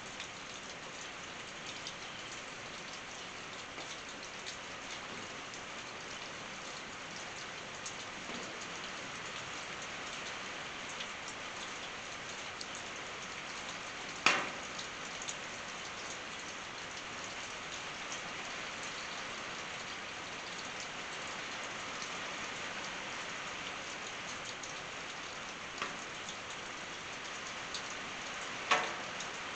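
Steady rain pattering on a tin roof, an even hiss of drops, broken by a few sharp single knocks: a loud one about halfway through, a smaller one, and another loud one near the end.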